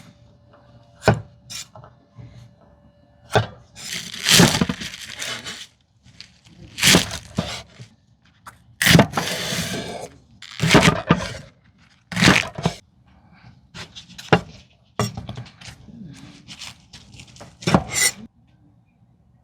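Food-preparation noises: a string of separate knocks, clicks and short scraping or rustling sounds, each a second or less, with brief pauses between them.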